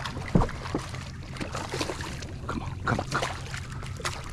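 A hooked speckled seatrout thrashing at the surface beside a boat: a run of short, irregular splashes, the sharpest about half a second in.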